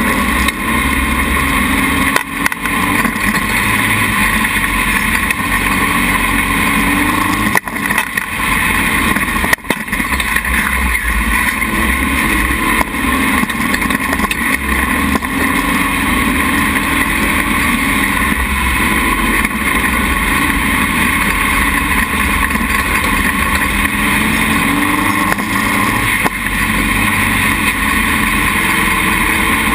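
Dune buggy engine running steadily under way across soft sand dunes, with a few brief dips in level.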